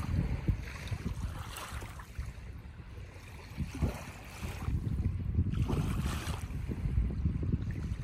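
Wind buffeting the microphone in uneven gusts, a low rumble, with a few brief surges of higher hiss.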